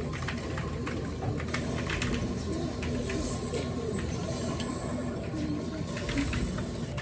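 Close-up eating sounds: wide glass noodles slurped in and then chewed, with many small wet clicks of the mouth throughout.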